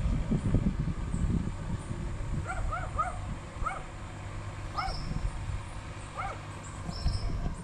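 An animal yipping: about seven short calls that rise and fall in pitch, over a couple of seconds a few seconds in. Beneath them is a low rumbling noise, loudest at the start.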